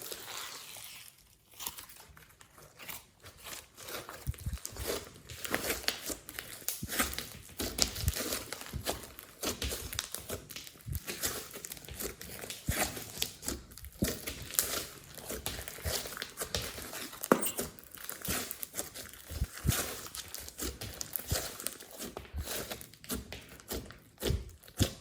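Hands squishing, folding and stretching glossy slime, making a continuous run of small sticky clicks and pops.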